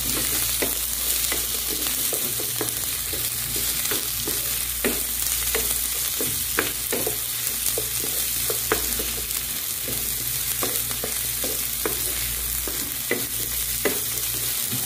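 Sliced shallots, garlic and chillies sizzling in hot oil in a non-stick pan, with a steady hiss, while a wooden spatula stirs them, tapping and scraping the pan many times.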